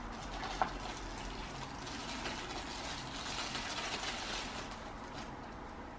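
Hands unpacking a new action camera and its accessories: a sharp click about half a second in, then a stretch of rustling and handling of plastic packaging.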